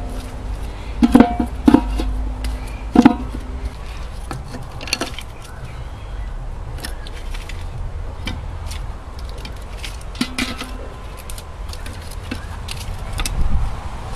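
Metal cookware being handled: three or four clanks in the first three seconds, each leaving a brief ringing, then softer knocks and clicks over a steady low rumble.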